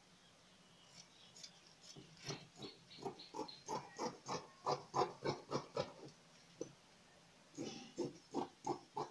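Scissors snipping through layers of wax-print cotton fabric, a steady run of short cuts at about three a second, pausing briefly near the end before cutting on.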